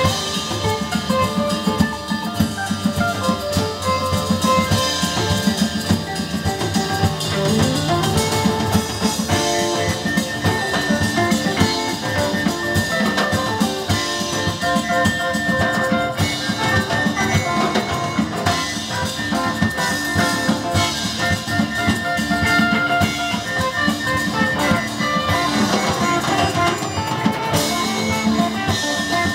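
Live band playing an instrumental jam, with a drum kit keeping a steady beat under guitar and keyboard.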